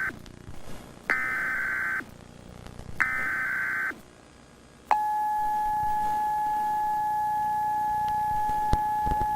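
Emergency Alert System SAME header tones: the end of one burst, then two more buzzy data bursts about a second long, each a second apart. About five seconds in, a steady single-pitch tone starts and holds.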